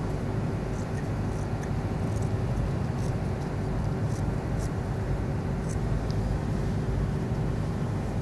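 Steady low background rumble with a faint steady hum, and a few faint, sharp ticks scattered through it.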